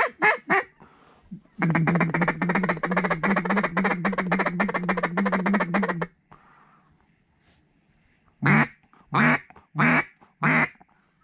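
Mallard hen-style quacking: a fast, even run of chattering quacks for about four seconds, then, after a pause, four single loud quacks about two-thirds of a second apart.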